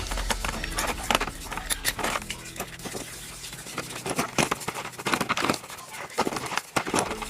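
Irregular series of sharp clicks and light knocks, some louder ones about a second in and around four and a half seconds in.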